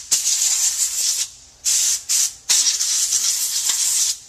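Can of compressed air spraying through its straw in four hissing blasts, the last and longest about a second and a half, blowing dust out of an open laptop's chassis.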